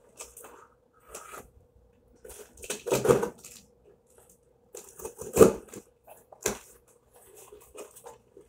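A cardboard shipping box is slit along its tape and its flaps are pulled open: scattered scraping, rustling and tearing of tape and cardboard, with two louder thumps about three and five and a half seconds in. A faint steady hum runs underneath.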